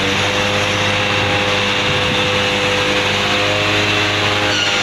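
Diesel truck engine running at a steady speed to power the truck-mounted hydraulic crane. It is a constant hum with a higher whine over it.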